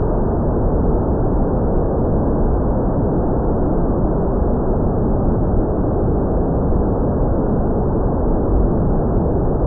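Wind noise buffeting the microphone: a steady, dull rushing rumble with no clear motor tone.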